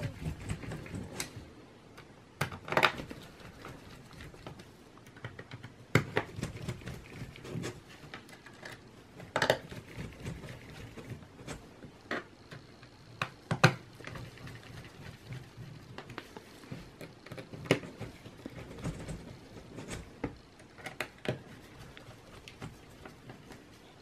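Sharp clicks, taps and light scraping from a mini Phillips screwdriver and gloved hands on the plastic bottom panel of a Dell Latitude E5570 laptop, as the back plate is pressed into place and its screws are driven in. The sharp clicks come singly, about one every three to four seconds.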